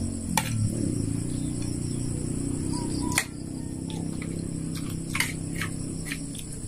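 Metal spoons clinking against ceramic plates now and then while people eat, a few sharp clicks over a steady low hum.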